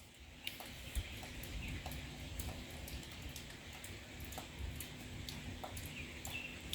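Rain falling, with large drops tapping irregularly close by, several sharp taps a second over a steady hiss.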